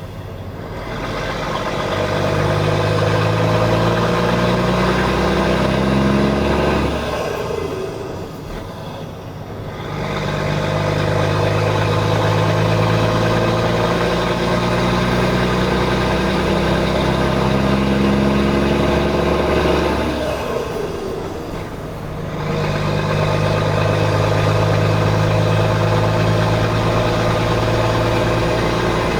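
MAN TGA 18.480 truck's six-cylinder diesel engine revved up and held at high revs three times, each time falling back toward idle before rising again.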